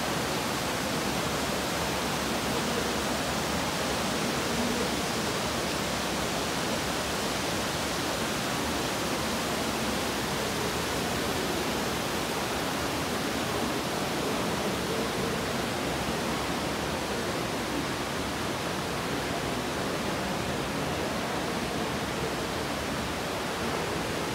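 Steady rushing of running water in a cave, an even hiss with no breaks.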